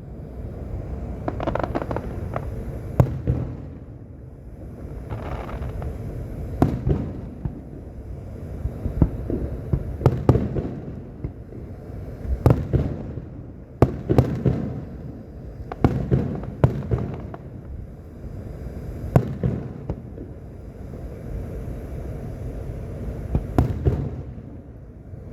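A fireworks display: aerial shells bursting in irregular succession, each bang followed by a rolling rumble, over a continuous low rumble of echoing booms.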